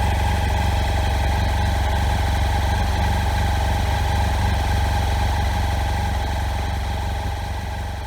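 BMW F800 GS 798 cc parallel-twin engine idling steadily, growing quieter over the last couple of seconds.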